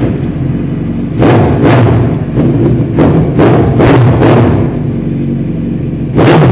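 A 2014 Suzuki Hayabusa's inline-four, breathing through an aftermarket exhaust, catches at the very start and idles loudly. It is blipped hard again and again: a quick run of about seven revs from one to four and a half seconds in, then one more near the end.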